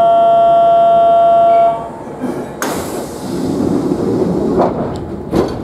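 Train's door-closing warning tone, a steady electronic tone that stops about two seconds in, then the pneumatic doors closing: a sudden hiss of air, a rumble as the door slides, and a knock as it shuts near the end.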